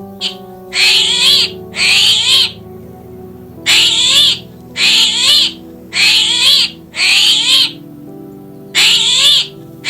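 An animal calling repeatedly: about eight harsh, high-pitched calls, each roughly half a second long, mostly about a second apart. Background music with held chords plays underneath.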